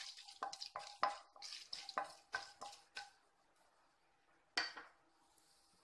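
Mustard seeds, urad dal and chana dal frying in hot oil in a pan: a quick run of sharp pops and crackles over the first three seconds, thinning out, with one more sharp pop about four and a half seconds in.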